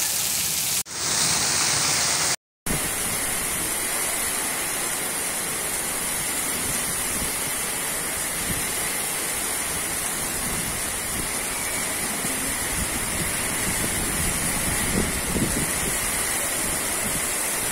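Heavy downpour driven by strong wind: a steady, dense rushing noise. It breaks off briefly about a second in and again about two and a half seconds in.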